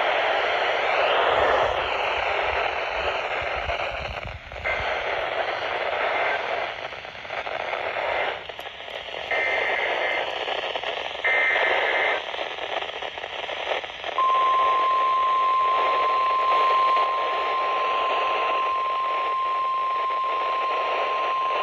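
NOAA weather radio receiver hissing and crackling with static on a weak signal that is being disturbed by lightning. Short bursts of EAS (SAME) data tones come about 9 and 11 seconds in. About 14 seconds in, the weather radio's warning alarm tone starts, one steady high beep, marking the start of a new alert.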